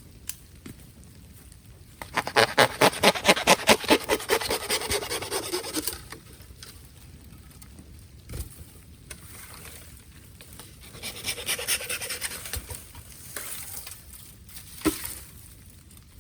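Bamboo burning in a bonfire: two bursts of fast sputtering, about ten pulses a second. The first is loud and lasts about four seconds; the second is weaker, some seconds later. A single sharp crack comes near the end.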